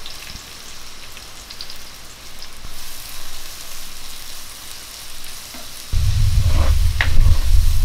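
Chopped onions sizzling in hot oil in a clay pot while a ladle stirs them. About six seconds in, a loud low rumble sets in and stays, louder than the sizzling.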